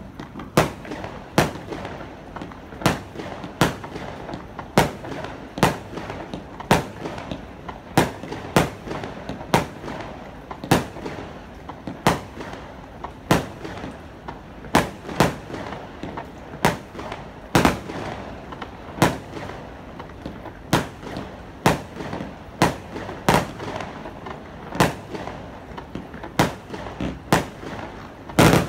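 Aerial fireworks bursting in a long, steady string of sharp bangs, a little more than one a second, with steady noise between them; the loudest bang comes right at the end.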